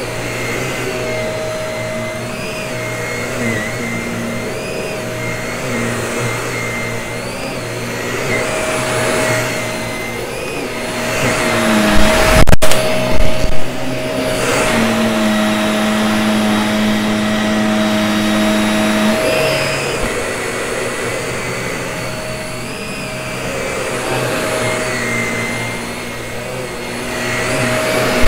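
Vacuum cleaner running steadily with a constant motor whine, swelling and easing every couple of seconds. About twelve seconds in comes a brief burst of loud knocks and rattles, and a lower hum sounds for a few seconds after it.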